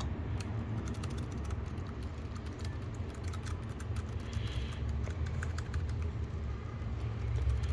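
Steady, rapid typing on a Keychron K3 V2 low-profile mechanical keyboard with brown tactile switches: many quick, fairly soft key clicks. Brown switches are the tactile kind, not the loud clicky kind.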